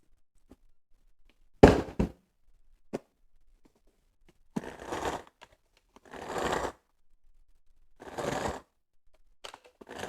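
Handling noises: two sharp knocks a little under two seconds in, then four short scraping or rustling strokes about every second and a half.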